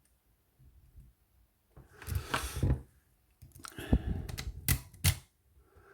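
A steel lock pick and tension wrench scraping and rattling in the keyway of a cabinet wafer lock, in two bursts that end in a few sharp metallic clicks. The hook is catching on the lock's warding.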